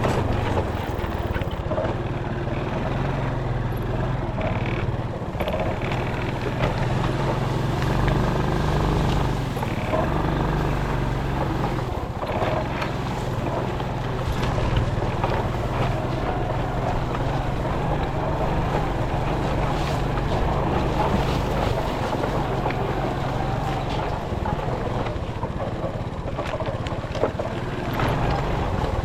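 Small boat engine running steadily at a constant speed, a low even drone, with water and wind noise over it.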